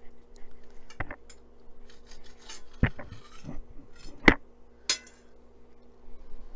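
Steel knife and fork clinking and scraping on a ceramic plate while slicing through a boiled chicken roll. There are a few sharp clinks, the loudest about two-thirds of the way through, with rasping cuts between them, over a faint steady hum.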